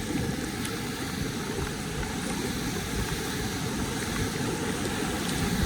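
Steady rushing of whitewater on a river surf wave pouring through a dam gate, picked up by a helmet-mounted phone as a kayak drops onto the wave.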